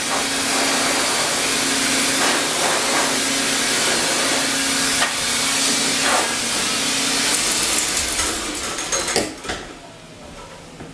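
High-velocity force dryer blasting a steady hiss of air into a poodle's coat, with a low motor hum. It is switched off about nine seconds in, after a few knocks, and its motor winds down with a faint falling whine.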